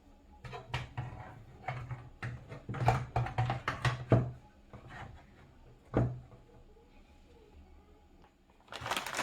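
A power supply being handled and set into a PC case: a run of irregular knocks and clicks over the first few seconds, one more knock a couple of seconds later, then quieter handling.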